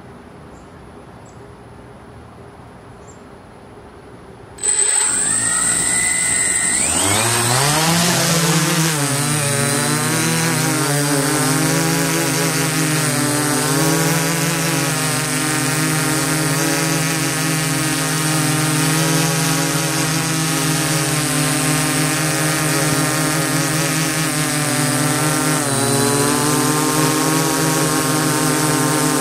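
DJI S800 hexacopter's six electric motors and propellers starting up about four and a half seconds in, their pitch rising as they spin up for takeoff, then running as a steady loud buzz as the aircraft climbs and hovers. Heard up close from the camera on the aircraft itself, with a faint high whine before the motors start.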